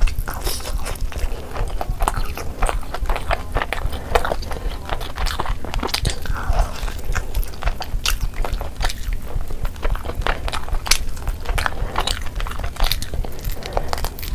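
Close-up eating sounds: biting and chewing roasted chicken torn off the drumstick bone, with many irregular sharp clicks and crunches.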